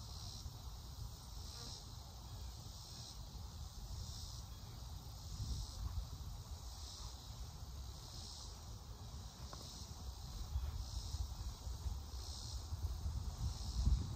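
Chorus of insects calling in regular swells about every second and a half, over a low steady rumble.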